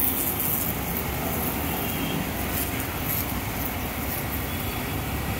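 A 130-bar pressure washer running, its water jet hissing steadily as it sprays onto a motorcycle's engine and exhaust.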